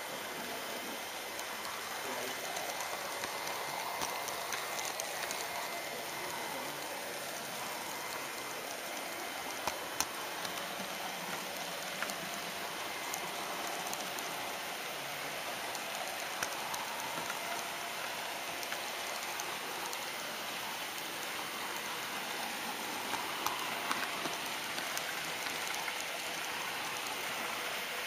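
HO scale model train rolling along its track, heard from a camera riding on the train: a steady rushing hiss with a few sharp clicks.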